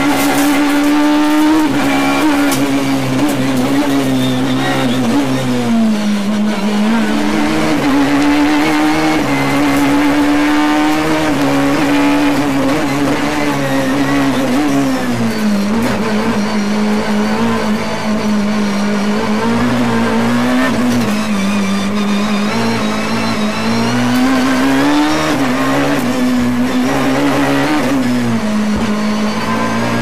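Peugeot 306 Maxi rally car's naturally aspirated four-cylinder engine heard from inside the cabin, run hard and high in the revs. Its pitch drops and climbs back several times as the driver shifts and lifts for corners.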